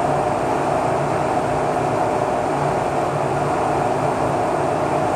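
A steady, unbroken mechanical drone with a low hum running through it, like a large fan or machine running in the shop.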